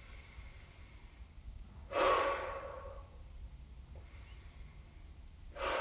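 A woman's audible breaths, twice: about two seconds in and again near the end, each starting sharply and fading over about a second.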